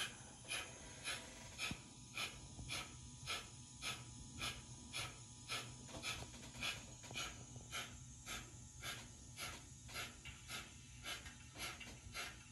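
DCC sound decoder in a model Adams 415 radial tank steam locomotive, playing steady steam exhaust chuffs through the model's small speaker at about two a second as the model runs on a rolling road. A low steady hum runs underneath.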